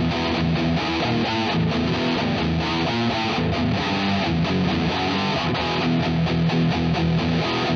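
Electric guitar, a Chibson Les Paul replica fitted with a bone nut, played through distortion with palm-muting: a fast run of short, muted, chugging low notes.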